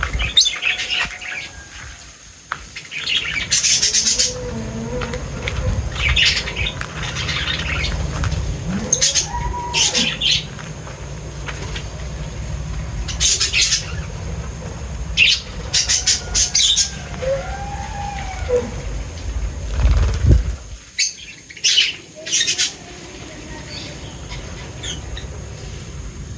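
Birds chirping in short clusters of high, rapid calls every couple of seconds, with a few lower, sliding calls in between. A low rumble runs underneath.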